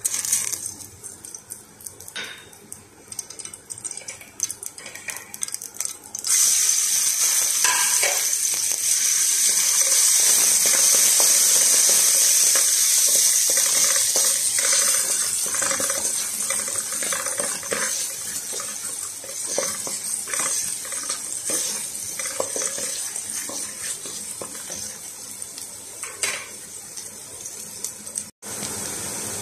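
Light clinks and knocks at first; about six seconds in, chopped onion and garlic go into hot oil in a metal pot and sizzle loudly and steadily, with a spatula scraping and tapping against the pot as they are stirred.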